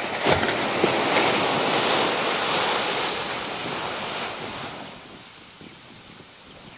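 Surf washing onto a sandy beach, with wind on the microphone. The rush is loudest at first, then dies down to a softer wash about two-thirds of the way in.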